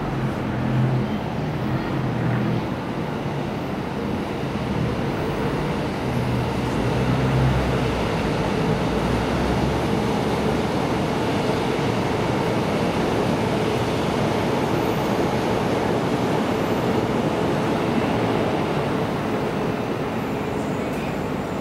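Electric commuter train running on the tracks: a steady rumble of wheels on rails, with a steady hum coming in from about eight seconds in until about sixteen seconds.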